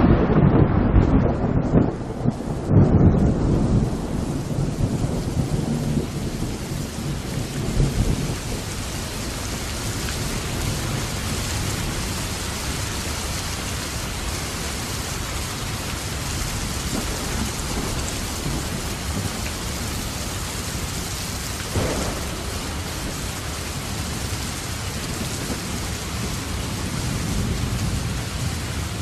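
Thunder rumbling over heavy rain: loud rolling rumbles in the first few seconds, then a steady hiss of downpour.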